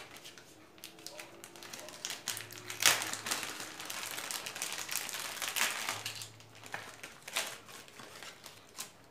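Clear plastic packaging crinkling and crackling as it is pulled open by hand, in irregular bursts of rustle; the sharpest crackle comes about three seconds in.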